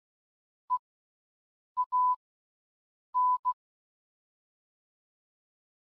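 Morse code sent as a single-pitch electronic beep tone, keyed in short and long beeps (dots and dashes) with silence between. There are five beeps: a short one about a second in, a short and a long at about two seconds, and a long and a short just after three seconds, then nothing for the last two seconds.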